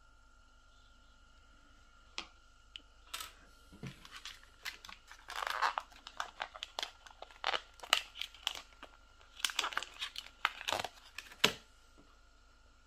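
Clear plastic blister packaging of replacement clipper blades crinkling and clicking as it is handled and opened: a busy run of sharp clicks and crackles starting about two seconds in and stopping shortly before the end.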